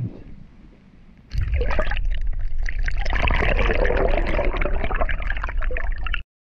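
River current heard through a camera microphone held underwater: after a quieter second of the stream above the surface, a sudden loud, muffled rush of flowing water with a deep rumble and bubbling sets in as the camera goes under. It cuts off abruptly near the end.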